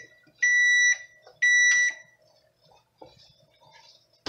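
Electronic beeping at one high pitch: a short beep, then two beeps of about half a second each, a second apart.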